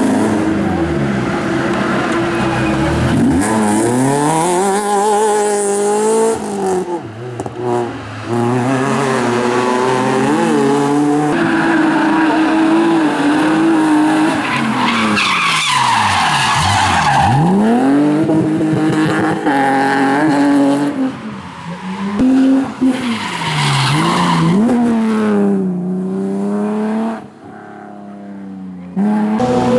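Competition car engine revving hard, its pitch repeatedly climbing and dropping away, with tyre squeal and skidding. The noise drops briefly several times, most clearly near the end.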